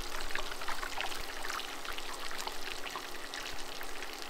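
Hot oil bubbling and crackling as quesadilla wedges deep-fry in a cast iron skillet: a steady crackling hiss, with a faint steady hum underneath.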